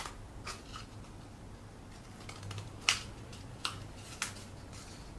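Scissors snipping into a cardboard toilet-roll tube: a string of short, sharp snips at uneven intervals, the loudest about three seconds in.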